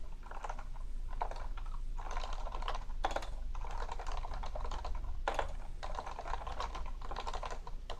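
Topre Realforce 101 keyboard with variable-weight Topre electrostatic capacitive switches, typed on quickly and steadily, with two louder key strikes about three and five seconds in.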